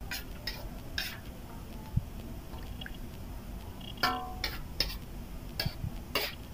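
Scattered light clicks and knocks of kitchen utensils and dishes, with one ringing metal clink about four seconds in.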